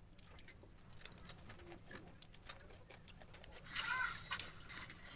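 Eating sounds of crispy-fried chicken bones: repeated small crunches and clicks as the pieces are pulled apart and chewed. About four seconds in comes a brief, louder pitched sound, the loudest moment.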